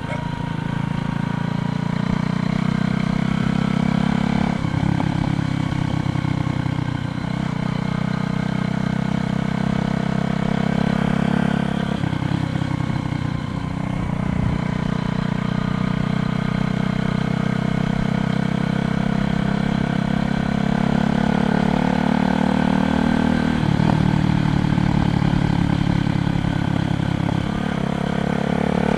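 A motor vehicle engine running steadily, its pitch shifting several times as it changes speed.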